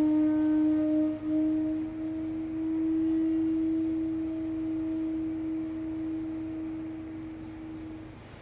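Shakuhachi playing one long, low, steady note, broken twice briefly near the start, then held and fading out near the end.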